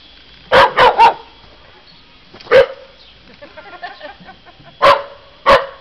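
A dog barking in short, loud, sharp barks: a quick run of three about half a second in, a single bark at about two and a half seconds, and two more near the end.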